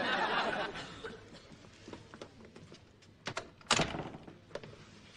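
A brief murmur of studio-audience reaction at the start, then a few light knocks and a single heavy thud a little over three and a half seconds in.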